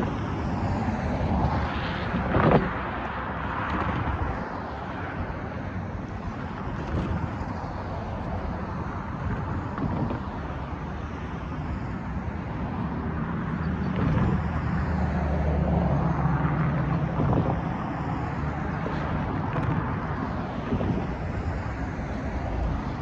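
Road traffic crossing the railroad tracks: cars swelling past and fading one after another, with wind buffeting the microphone. There is a brief loud thump about two and a half seconds in. A heavier vehicle's engine drones low for a few seconds past the middle.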